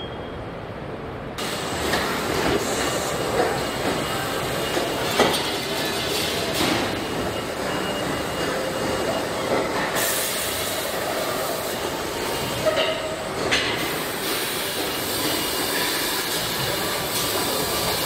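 Car body-shop assembly-line machinery: a steady mechanical din and hiss with scattered sharp clanks, getting louder about a second and a half in.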